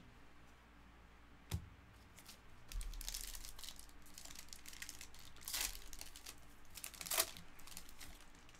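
A foil trading-card pack wrapper (2022 Panini Legacy Football) being crinkled and torn open by hand. The crinkling starts about three seconds in, after a single sharp click.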